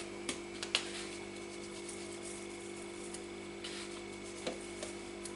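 Steady hum of a GM electric pressure cooker running on its browning setting, with a few faint clicks and a soft brief patter as salt is sprinkled over raw meat in the pot.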